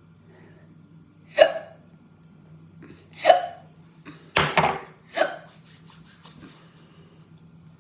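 A person hiccuping about four times: short, sharp hiccups, the later ones coming closer together.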